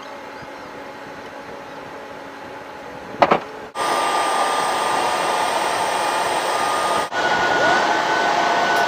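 Steady whine and rush of a large cargo jet's ground machinery as its nose loading ramp is lowered. A short crackling burst about three seconds in, then the sound comes back louder with a higher steady whine, with a brief dropout near seven seconds.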